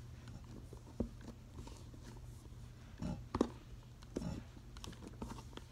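Hands kneading and squeezing soft play dough made of cornstarch and hair conditioner, with quiet squishes and a few soft knocks on the table, the loudest about three seconds in, over a faint steady low hum.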